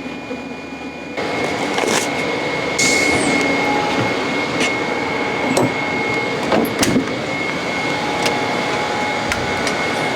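Steady noise inside a moving vehicle's cabin, with a thin high steady whine and scattered light clicks and knocks, starting suddenly about a second in.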